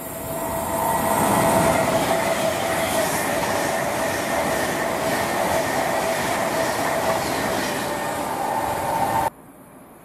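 Avanti West Coast Class 390 Pendolino electric train passing at speed: loud rushing rail noise with a steady whine and a faint regular wheel beat. The sound cuts off suddenly about nine seconds in.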